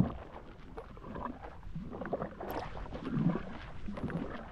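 Scattered light knocks, clicks and rustling of handling aboard a kayak, with a sharp louder knock right at the start.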